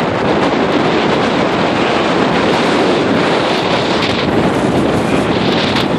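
Strong wind, at least 70 mph, buffeting the microphone in a steady, loud rush, mixed with rough lake waves surging against the pier.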